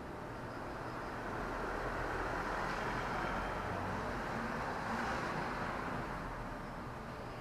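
A vehicle passing by: a steady rushing noise that swells over the first few seconds, holds, then fades away.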